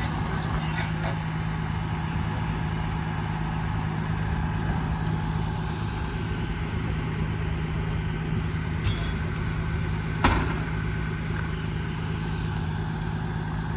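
Engine idling steadily at work equipment beside the track, with two sharp knocks, one about nine seconds in and a louder one a second and a half later.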